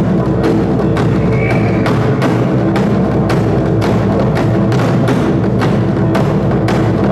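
Korean traditional percussion ensemble playing live: a steady beat of sharp, woody strikes, about two to three a second, over sustained low tones.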